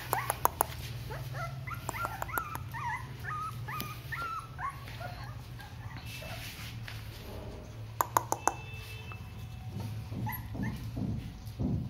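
Young Rottweiler puppies whimpering and squeaking in a flurry of short, high, wavering calls. Runs of sharp clicks come near the start and again about eight seconds in, over a steady low hum.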